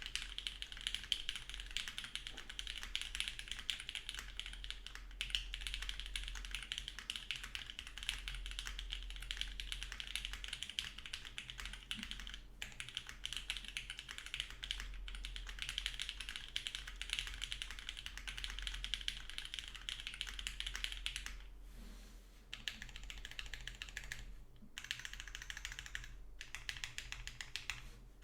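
Bakeneko60 mechanical keyboard being typed on steadily, with Cherry Retooled Black linear switches lubed with 205g0 and filmed, mounted on an FR4 plate under GMK keycaps: a dense stream of key presses that breaks off briefly a few times in the second half.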